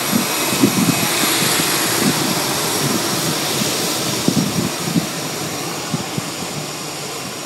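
Airbus A321 jet engines running as the airliner turns on the runway: a loud, steady rush with a thin high whine, easing slowly toward the end. Irregular gusty thumps of wind buffet the microphone.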